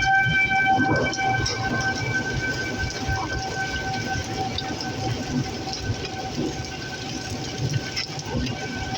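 Outdoor tornado warning siren sounding a steady tone held on one pitch, over steady rain and a low rumbling noise.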